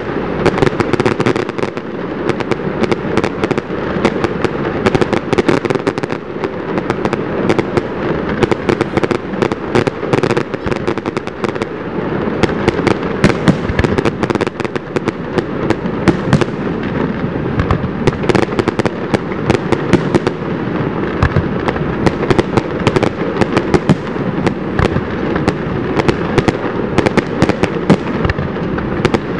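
Aerial fireworks display: dense, rapid crackling and popping from crackle-effect shells, with many sharp reports following close on one another.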